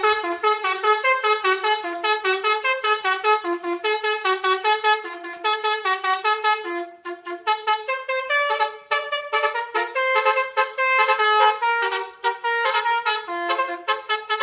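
Basuri bus's telolet horn, a multi-tone musical air horn, playing a fast run of stepped notes. The notes break off briefly about seven seconds in and then start up again.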